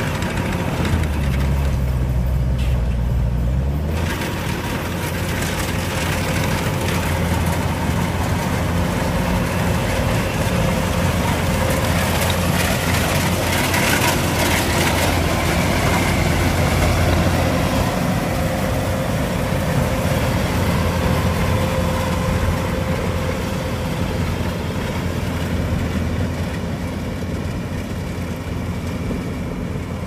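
Kubota DC-105X combine harvester's diesel engine and threshing machinery running under load while harvesting rice: a steady drone with a low hum and a steady whine. The sound grows louder and noisier around the middle, as the machine comes close.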